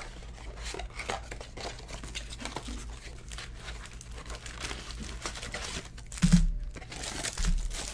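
Plastic shrink wrap crinkling and a cardboard trading-card box being torn open by hand, with a thump about six seconds in.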